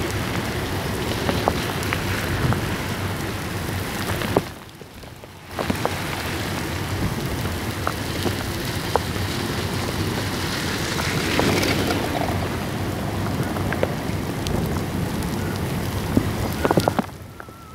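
Heavy rain pouring down in gusty wind: a steady hiss of rain on the street with scattered ticks of drops. The hiss drops away for about a second about four and a half seconds in, then returns.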